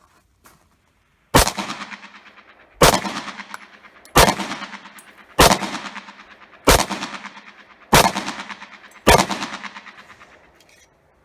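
Tokarev TT-33 semi-automatic pistol (7.62×25mm) fired seven times in slow, steady succession, about one shot every second and a quarter, each shot followed by a long echoing tail.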